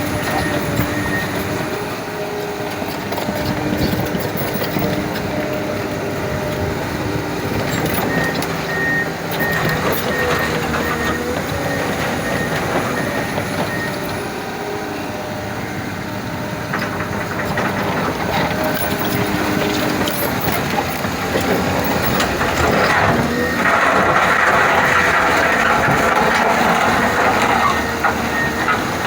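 Crawler bulldozer working rock: its diesel engine running under load, steel tracks clanking, and the blade scraping and grinding on stone, louder for a few seconds near the end.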